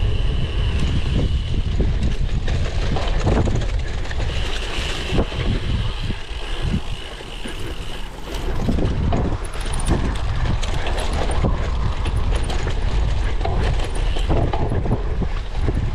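Wind buffeting the microphone over a low rumble, with the steady clatter and rattle of a cyclocross bike ridden hard over rough ground.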